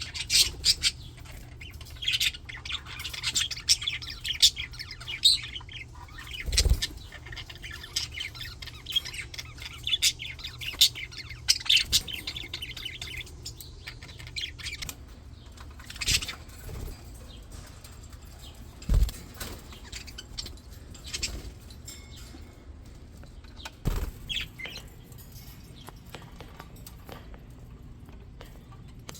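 Flock of English budgies chattering with many short, high chirps, busy through the first half and sparser afterwards. A few dull thumps break in, about four in all.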